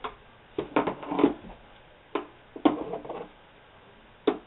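Hand tools (pliers, screwdrivers) knocking and clattering against a wooden desk top as they are picked up and cleared away: a string of separate knocks, bunched about a second in and again near three seconds, with a sharp knock near the end.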